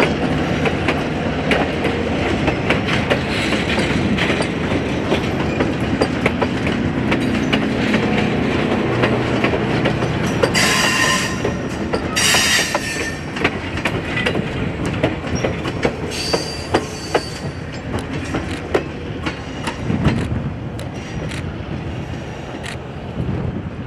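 Mount Hood Railroad passenger coaches rolling past, their wheels clicking over rail joints with a steady rumble. About halfway through the wheels squeal in two high bursts, with a shorter squeal a few seconds later.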